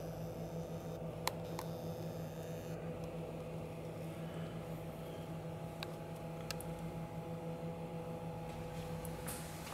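Steady low electrical or ventilation hum with a few constant tones, the room tone of an indoor space, broken by a few faint short clicks.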